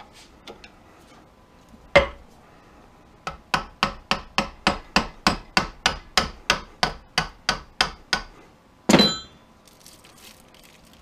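Hammer tapping a flathead screwdriver driven under the copper windings of a fan motor's stator held in a vise, to cut the windings out: one strike, then a run of quick, even taps at about three to four a second. Near the end there is one longer, louder noise.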